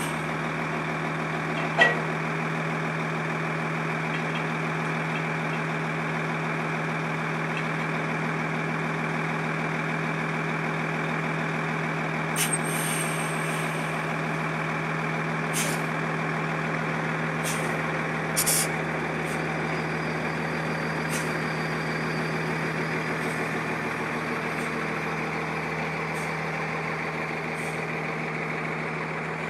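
Tow truck's engine running steadily to power the hydraulic boat trailer, a constant even drone. A sharp click comes about two seconds in, and several short hisses come in the middle.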